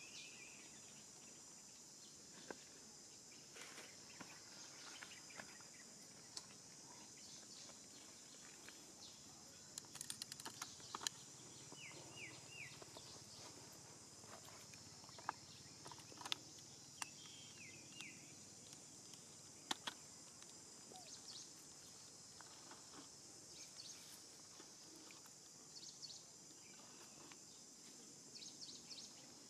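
Faint forest ambience: a steady high-pitched insect drone, with scattered rustles and clicks in dry leaf litter and a few short chirps.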